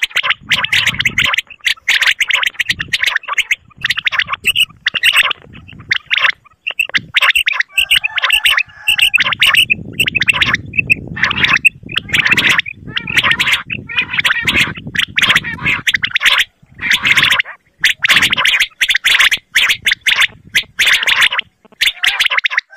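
Common quail (batair) calling over and over in rapid runs of short notes with brief gaps between them. It is a hunting-cassette recording of the kind played as a lure to draw quail into nets.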